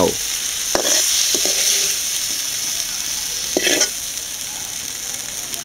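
Oil sizzling steadily in a hot pan as fried tomato pieces are scooped out, with a few short knocks of the spatula against the pan; the sizzle eases a little toward the end.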